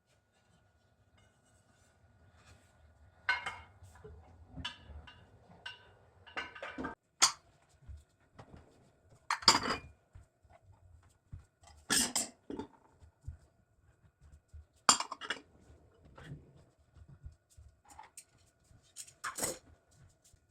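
Dishes and kitchen utensils clinking and knocking now and then, about ten separate clinks and clatters with quiet gaps between them.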